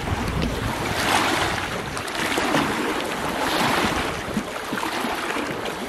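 Small waves from a passing boat's wake washing and splashing against a rocky reservoir shore. The wash swells and ebbs several times.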